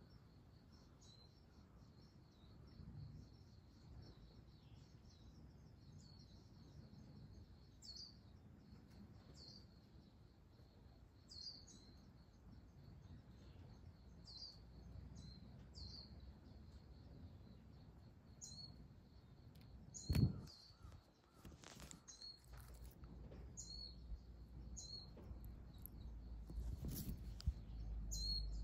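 A small bird calling in short high chirps about once a second, over a faint steady high-pitched tone. A sharp knock comes about two-thirds through, and rustling handling noise comes near the end.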